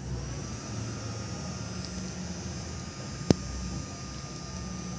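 Battery-operated bubble gun's small electric fan motor running: a steady whine over a fan hiss, rising briefly as it spins up at the start. One sharp click about three seconds in.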